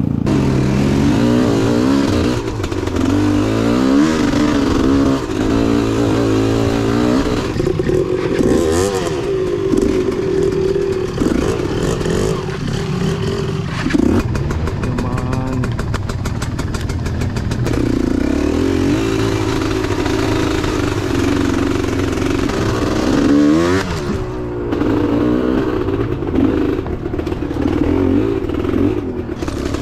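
Enduro dirt bike engine revving up and down over and over as the bike picks its way along a rough, rooty trail. In the middle stretch there is a spell of rapid, even clattering.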